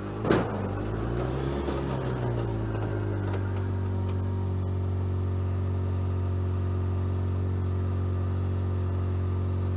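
Engine of a 2013 Polaris RZR 800 LE, a twin-cylinder four-stroke, running under the driver's control: its speed dips and rises over the first two seconds, then holds steady. One sharp knock about a third of a second in is the loudest sound.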